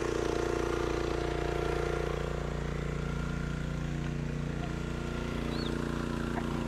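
Small single-cylinder gas engine of a log splitter running steadily just after starting, its pitch shifting slightly a couple of seconds in.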